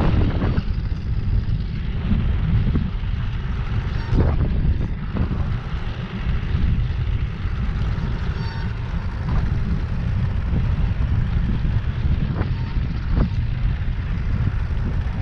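Wind buffeting the microphone: a steady low rumble with a few faint knocks.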